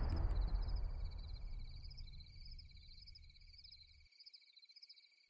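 Crickets chirping steadily, a night-time insect background. Underneath, the deep rumbling tail of a loud boom fades away over the first few seconds and is gone by about four seconds in.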